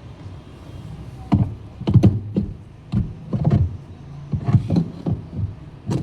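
A series of irregular knocks and thuds, about a dozen over a few seconds, from washing machine gearbox parts being handled and set in place.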